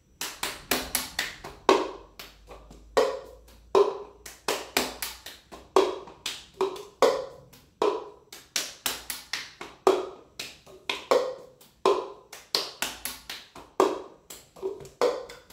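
Cup-rhythm game performed on a stone countertop: hand claps, hand taps on the counter, and a cup picked up and struck against the palm and the counter, in a steady repeating pattern of about two to three sharp hits a second. The sequence runs clap, clap, tap, tap, clap, pick up and strike, then clap, pick up, strike the hand, strike the table, grab the bottom, strike, strike.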